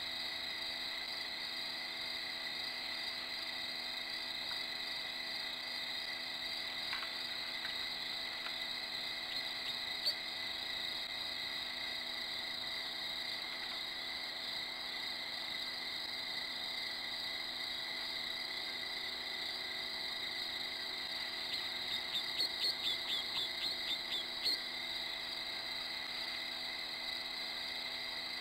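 Steady night chorus of insects and frogs with several unchanging high-pitched drones. Late on comes a short run of about a dozen quick high chirps.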